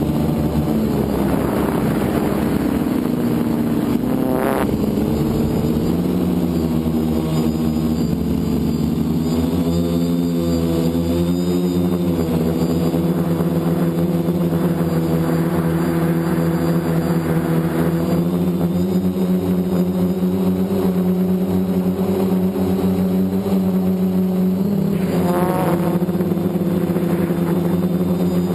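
FPV multirotor drone's electric motors and propellers buzzing steadily in flight, the pitch rising and falling as the throttle changes.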